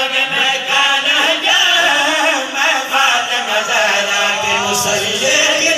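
A man chanting a qasida, a melodic devotional recitation, with long, wavering notes.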